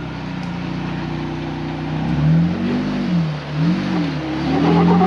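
Jeep engine pulling up a rock ledge under load: steady running, then revving up and back down twice in quick succession around the middle, before holding a steadier, higher pull near the end.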